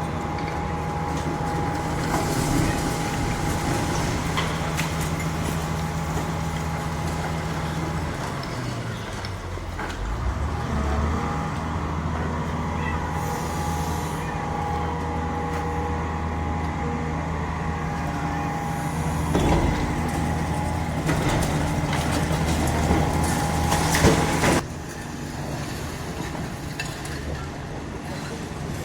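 Heavy diesel demolition machinery running, an engine with a steady low hum whose pitch sags and picks up again about ten seconds in, with scattered knocks and crunches. The engine sound cuts off suddenly about 25 seconds in, leaving a quieter background rumble.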